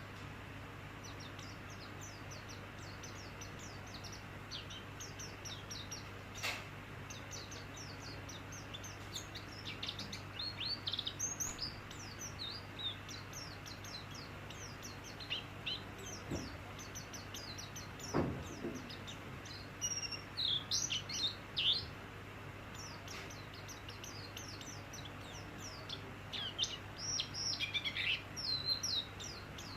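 White-eye (pleci) singing: quick high chirps and twitters throughout, rising into bursts of rapid song about a third of the way in, around two thirds, and near the end. A steady low hum runs underneath, with a couple of faint knocks near the middle.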